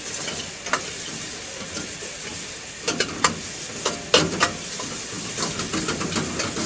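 Shredded vegetables sizzling in a hot metal wok while a long steel ladle stirs and tosses them. The ladle clanks and scrapes against the pan several times, most in the middle and quickening near the end.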